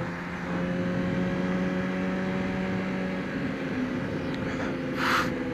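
Motorcycle engine running at a steady speed under wind rush. A short hiss comes about five seconds in.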